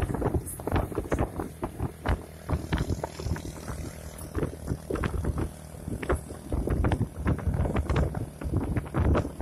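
Engine hum of a moving vehicle, with irregular knocks and rattles from bumps on the road and wind on the microphone.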